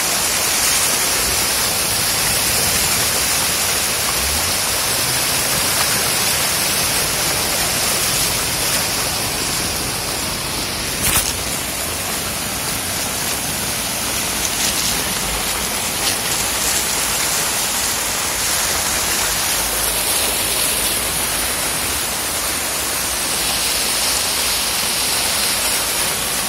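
Torrential rain and floodwater rushing across a street, a steady dense hiss and rush of water. A single sharp tap comes about eleven seconds in.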